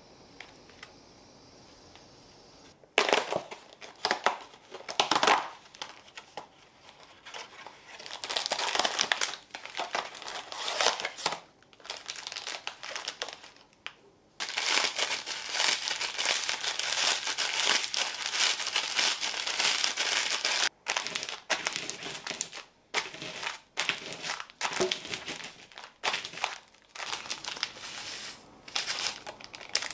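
Plastic wrappers and a plastic bag crinkling and rustling in irregular bursts as Marie biscuits are unwrapped and crushed into fine crumbs, starting about three seconds in, with a long unbroken stretch of crinkling and crushing in the middle.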